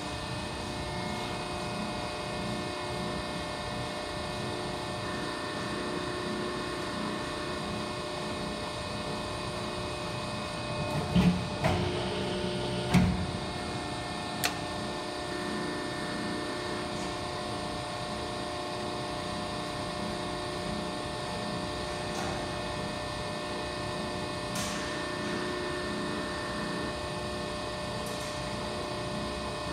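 Cincinnati 175-ton CNC hydraulic press brake running, its hydraulic pump giving a steady hum with several tones. A few loud clunks come about eleven to thirteen seconds in, followed by a single sharp click.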